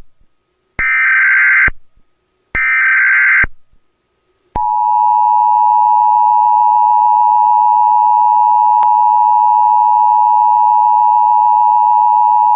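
Emergency Alert System SAME header: two short bursts of shrill digital data tones, each about a second long. About four and a half seconds in, the steady two-tone EAS attention signal (853 and 960 Hz) begins and holds.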